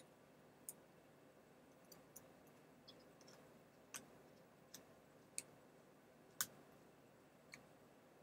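Faint, irregular small clicks and ticks from a precision Phillips screwdriver driving small screws back into a laptop's screen assembly, about ten clicks spread unevenly, a few louder than the rest.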